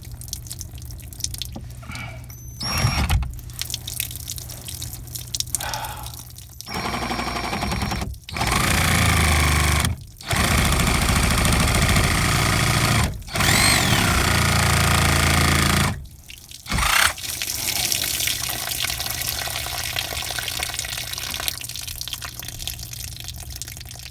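Liquid pouring and dripping out of a freshly cut drain pipe, coming in loud stretches that start and stop abruptly, then running on more softly near the end.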